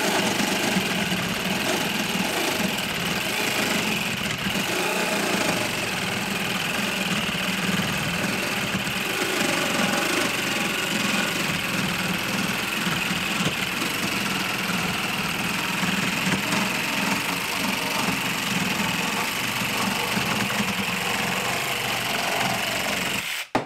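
TackLife 12-volt cordless mini reciprocating saw running steadily as its rough-cut blade saws through a 2x4, stopping suddenly near the end as the cut finishes.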